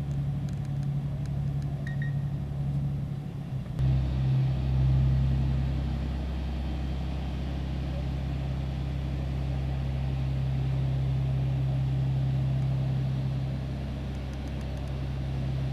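Steady low drone of a running engine, which jumps abruptly about four seconds in and then carries on steadily.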